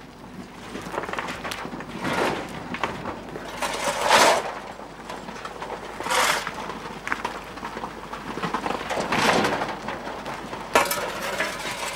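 Steel shovels scraping into a coal heap and tossing the coal, a gritty scrape and rattle every couple of seconds.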